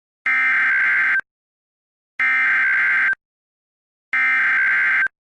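Emergency Alert System SAME header: three identical buzzy digital data bursts of about a second each, a second apart, the coded preamble that opens an emergency alert.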